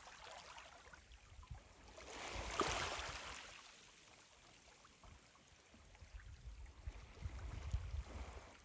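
Sea surf washing in: one rush of water that swells and fades about two seconds in. Wind buffets the microphone with low rumbling near the end.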